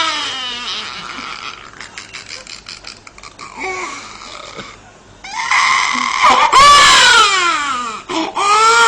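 A man imitating a baby crying in a high falsetto wail. A wail fades out at the start, then after a quiet stretch a loud wailing cry starts about five seconds in and falls in pitch, with another short cry at the end.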